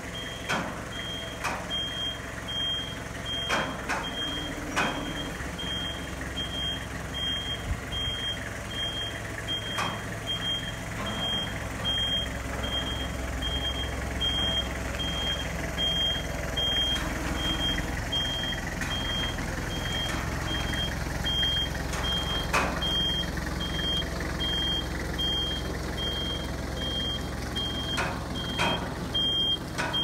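Komatsu 3-ton forklift reversing while carrying a granite boulder: its reversing alarm beeps in a steady series at one high pitch over the low hum of its engine, which swells now and then. A few sharp knocks break through here and there.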